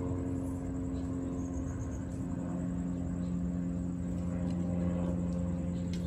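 A motor running with a steady low hum, its pitch settling slightly lower about two seconds in.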